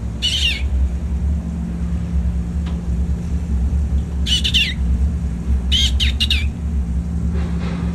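King penguin chick calling in short, high whistling peeps with bending pitch: once near the start, again about four seconds in, then three in quick succession around six seconds, over a steady low hum.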